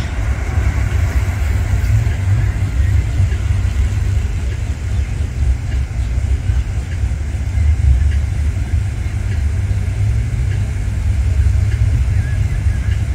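Chevrolet Camaro idling at the drag-strip starting line with a steady low rumble, with no revving while it is staged.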